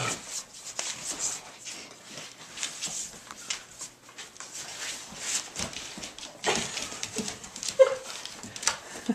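Tibetan Mastiff puppies tussling over a tug toy: irregular scuffing, scrabbling and mouthing noises on a wooden floor, with one short whine near the end.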